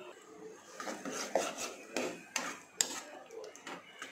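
Steel ladle stirring boiled peas and potatoes in a cooking pan, scraping and clinking irregularly against the pan from about a second in.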